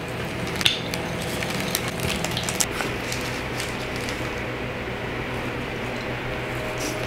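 Pizza cutter wheel rolling through a crisp baked chicken crust, giving short scattered crackles and clicks over a steady low hum.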